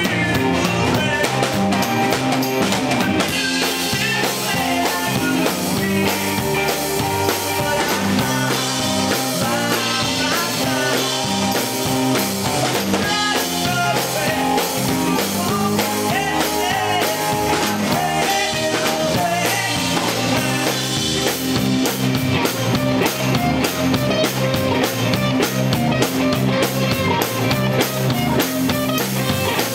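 Rock band playing live and loud: drum kit, electric guitar and bass guitar.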